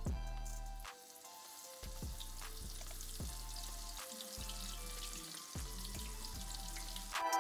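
Flour-coated shrimp frying in a pan of hot oil, a steady sizzle, under background music with a bass line.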